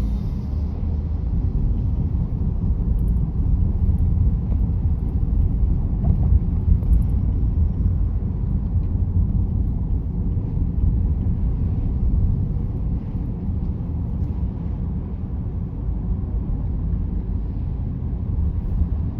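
Steady low road and tyre rumble heard inside the cabin of a moving car.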